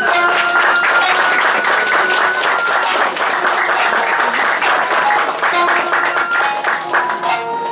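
Audience applauding over the closing bars of traditional Ryukyuan classical music, whose held notes carry on beneath the clapping.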